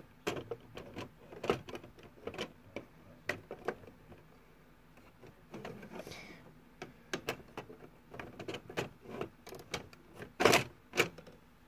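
Irregular clicks, knocks and rustling of small hard objects being handled and moved about, with a louder clatter about ten and a half seconds in.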